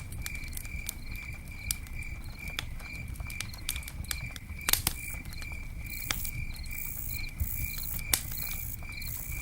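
Campfire crackling with scattered sharp pops, the loudest about halfway through and another later, over crickets chirping steadily about two to three times a second.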